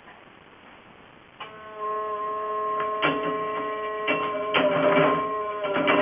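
Home-built maypole braiding machine starting up about a second and a half in and running with a steady whine, while its bobbin carriers make sharp clicks that come more often towards the end.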